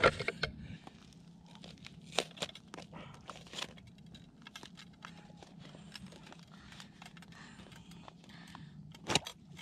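Footsteps crunching on crusty snow and ice, then scattered clicks and knocks as a wooden tip-up is handled over an ice-fishing hole. The loudest knocks come near the end.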